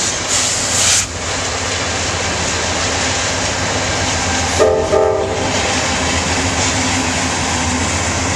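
Norfolk Southern diesel locomotives and a double-stack container train rolling across a steel girder railroad bridge: a steady rumble with a low engine hum and a brief rush of hiss in the first second. A short train-horn blast sounds about halfway through.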